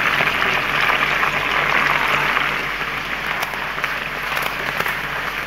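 Marinated chicken pieces frying in very hot oil in a pan: a steady, dense sizzle with many fine crackles.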